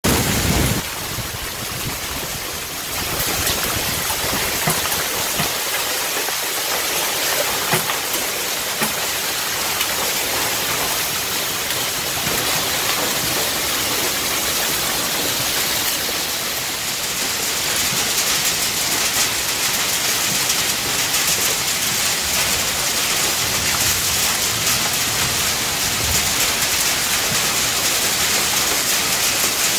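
Heavy rain mixed with hail pelting the ground, a steady dense hiss peppered with countless fine ticks of impacts.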